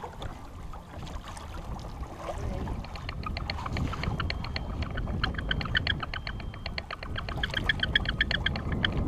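Fishing reel clicking rapidly and evenly, about eight clicks a second, starting about three seconds in, over a steady rumble of wind and lake water against the boat.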